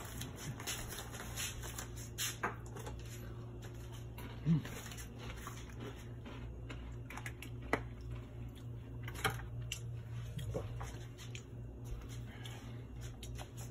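Steady low hum with a few scattered light clicks and knocks, one short low blip about four and a half seconds in.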